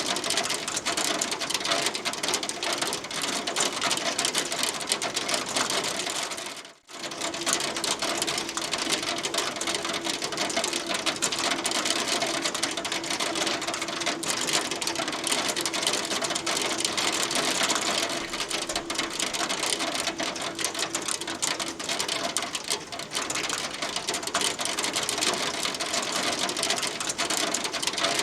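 Hail falling steadily, a dense continuous clatter of small hailstones striking a hard surface. The sound drops away for a moment about seven seconds in, then returns just as dense.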